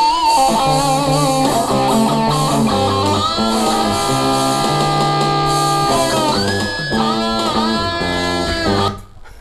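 Playback of a rough home multitrack recording made straight into a computer's onboard sound card: a guitar line with bent and sliding notes over a bass guitar part, in a messy mix. It cuts off abruptly about nine seconds in.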